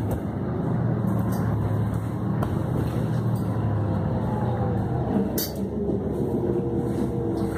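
City transit bus heard from inside the cabin: engine running with a steady low hum under the hiss of tyres on a rain-wet road. About halfway, a whine slides down in pitch and then holds steady, and there is one brief click about two-thirds of the way in.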